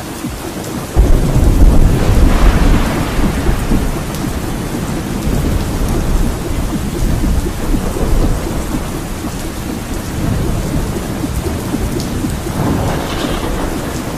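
Steady rain with thunder: a loud low rumble of thunder breaks about a second in and rolls away slowly over several seconds, with another smaller swell near the end.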